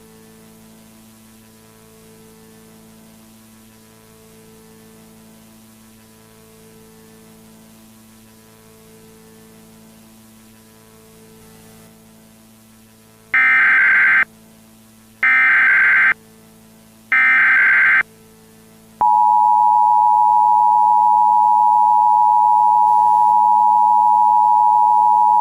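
Emergency Alert System tones: three short warbling data bursts of the SAME digital header, each about a second long and a second apart, which open an EAS alert. About 19 seconds in, the steady two-tone EAS attention signal starts and holds. Before the bursts there is only a faint low hum.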